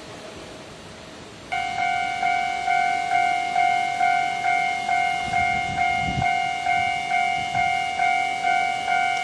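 Japanese level crossing's electronic warning bell starts up suddenly about a second and a half in, ringing an even, repeated ding about twice a second: the alarm that a train is approaching. A brief low rumble sounds under it in the middle.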